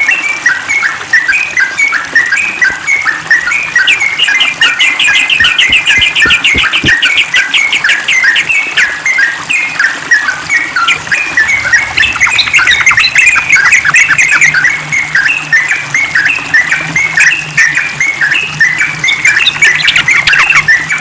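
Yellow-vented bulbul (trucukan) singing continuously in fast, chattering phrases of short notes, with a quick rapid run of notes about four seconds in.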